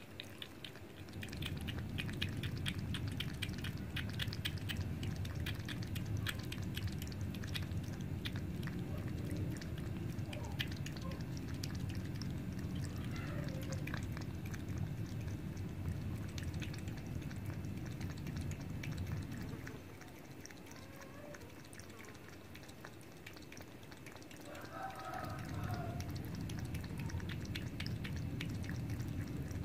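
Cat lapping water from a plastic bowl: a quick run of small wet clicks, about four a second, over a low steady rumble in the background that drops away for a few seconds past the middle.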